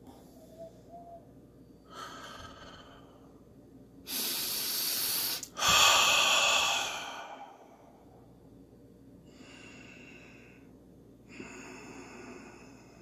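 A person breathing deeply and audibly close to the microphone: five long, airy breaths in and out, the loudest about six seconds in.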